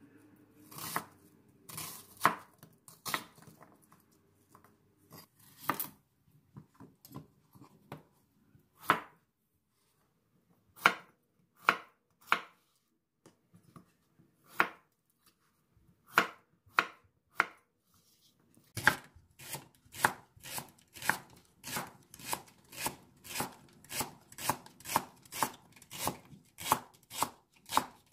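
Kitchen knife chopping vegetables (onion, Korean zucchini, green onion) on a wooden cutting board. The cuts are scattered and irregular at first, then about two-thirds of the way in they settle into a steady run of about two chops a second.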